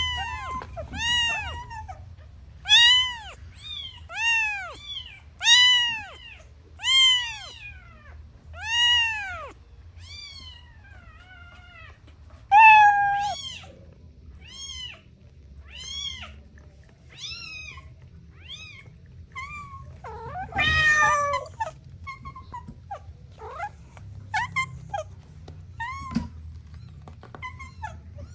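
Kittens mewing over and over, high thin calls that rise and fall, about one a second. The mews are loudest through the first ten seconds and fainter after, with one harsher, rougher cry about two-thirds of the way in.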